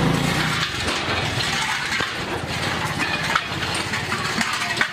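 Water sloshing and splashing as a hand scrubs and rinses the inside of a freshly tin-lined (kalai) copper pot, with light clinks of metal.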